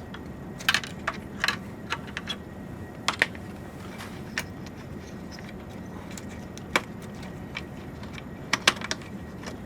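Scattered light clicks and taps of a server data cable being unplugged from its card connector and pulled free of its plastic routing guides, about a dozen irregular clicks over a low steady hum.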